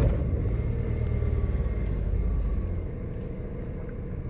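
Car engine running just after starting, with a fast idle that eases down to a lower idle about three seconds in.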